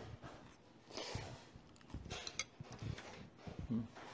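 Close-up eating sounds: ramen noodles slurped from a bowl of spicy tteokbokki sauce, then chewed, with a few short wet clicks and smacks.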